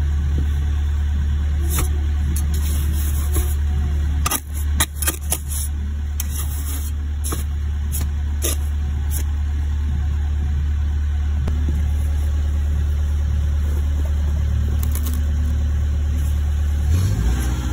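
A steady low engine hum running throughout, with a steel trowel scraping and knocking wet sand-and-cement mortar. The sharpest scrapes and taps come in a cluster about four to five seconds in.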